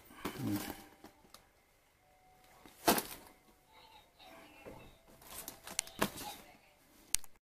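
A clear plastic storage bag of Christmas baubles being handled: plastic rustling with a few sharp clicks and knocks, the loudest about three seconds in and a cluster of them a few seconds later.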